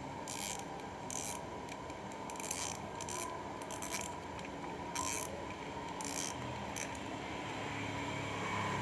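Bullzen Mini R800 ultralight spinning reel being worked by hand: short, irregular bursts of ratcheting gear noise, about seven in all. A low steady hum comes in near the end.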